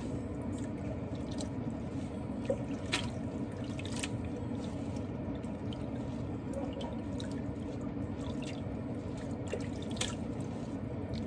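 Water running and dripping into a stainless steel kitchen sink as a bunch of leafy greens is rinsed and shaken by hand, with a few sharper splashes, about three and four seconds in and again near the end.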